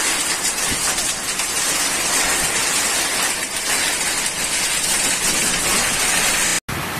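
Torrential cyclone rain driven by storm wind, a dense, steady hiss. It drops out suddenly near the end at a cut.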